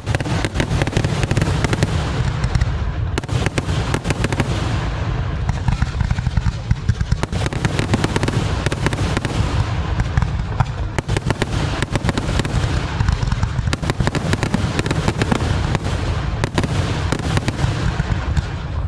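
A dense, continuous barrage of fireworks: rapid bangs and crackling with no pause.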